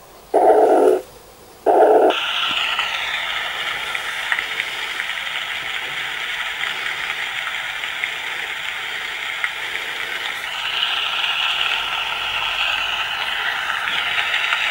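Cloud b Sleep Sheep soother playing its recorded sounds through its small built-in speaker. First come two slow, evenly spaced whooshing beats of the mother's-heartbeat track. About two seconds in, it changes to a steady hiss of spring rain with fine ticks.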